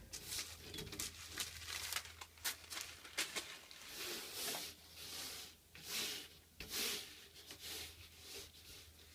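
EVA foam drawer liner being handled and pushed into a drawer: a series of short rubbing, scraping swishes with a few light clicks.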